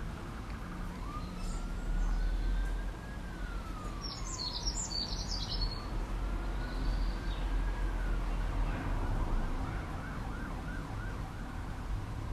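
Emergency-vehicle siren with two slow rising-and-falling wails, switching to a faster yelp about two-thirds of the way through. A bird chirps briefly near the middle over a steady low rumble.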